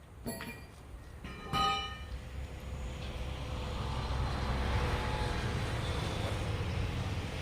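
Two metallic clanks that ring on, in the first two seconds, then a steady low engine rumble that builds up and holds.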